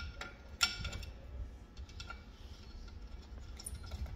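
A few light, irregular metallic clicks and ticks as bolts and parts of a planter closing wheel are handled and fitted together in a bench vise, the sharpest about half a second in, over a steady low rumble.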